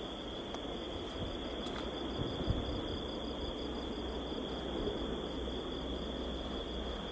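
Crickets trilling steadily in a continuous high-pitched chorus, over a low steady hum.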